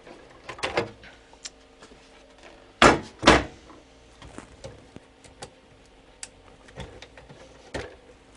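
Hand-handling sounds from taking apart a welder: scattered clicks and rattles of wiring connectors and the front panel being moved, with two loud knocks close together about three seconds in.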